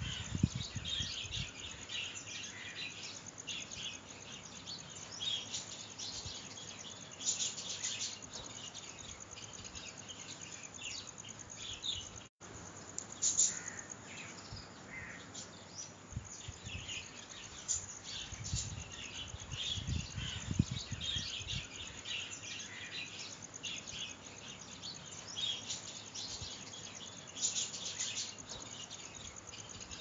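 A chorus of small songbirds chirping and twittering, many short high calls overlapping without pause. The sound cuts out completely for an instant about twelve seconds in, and a few soft low thumps come near the start and about two-thirds of the way through.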